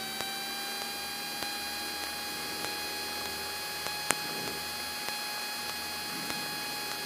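Steady electrical hum and hiss on a light aircraft's radio and intercom audio feed between transmissions: a whine of several fixed tones over a light static hiss, with one sharp click about four seconds in.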